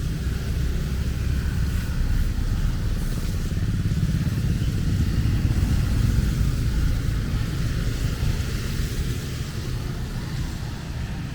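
Motor traffic rumbling past, swelling to a peak about halfway through and then easing off, over a steady hiss of rain.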